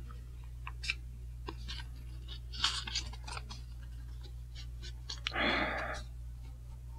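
Soft clicks and rustles of a plastic card sleeve being handled as a trading card is worked out of it, with one longer rubbing rustle about five seconds in.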